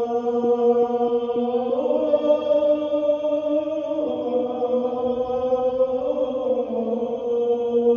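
A single voice chanting in long held notes that bend slowly up and down, in Islamic religious chant style.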